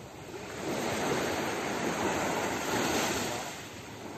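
Surf washing up the beach: a rush of wave noise that swells about half a second in and dies away near the end.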